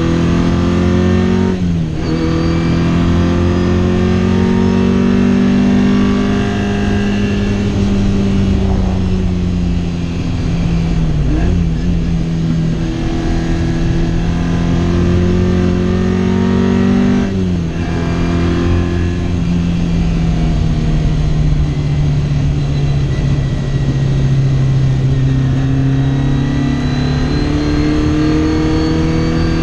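Race-prepared Lotus Twin Cam four-cylinder engine of a Tornado Fiat 600, heard from inside the cabin while driven hard on track. The revs climb and sag with the throttle, with quick gear changes about two seconds in, around the middle and just past halfway, and the engine pulls up through the revs again near the end.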